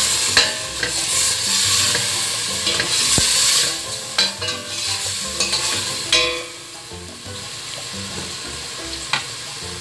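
Shredded chicken with onion and garlic sizzling in hot oil in a stainless steel pot while a utensil stirs it and scrapes against the pot. About six seconds in the stirring stops and a quieter sizzle goes on, with an odd click of the utensil.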